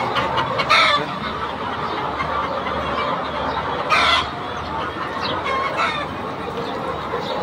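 A large flock of caged brown laying hens clucking in a continuous din, with a louder call about a second in and another around four seconds.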